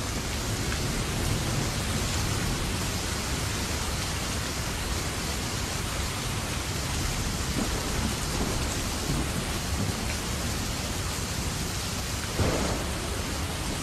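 Steady heavy rain with a low, continuous rumble of thunder, and a brief louder swell near the end.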